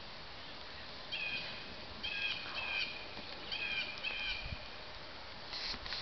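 A songbird calling in the background: a series of short, high, repeated phrases over a steady outdoor hiss.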